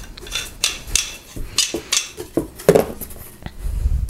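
Metal lightsaber hilt parts clicking and scraping in the hands as its loose pommel is screwed back on: a quick run of small metal clinks, with a low handling knock near the end.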